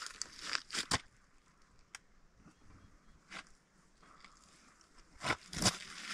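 Handling noises of a shooter settling in with a scoped rifle: short clicks, scrapes and crunches, a few in the first second and a louder cluster near the end, quiet between.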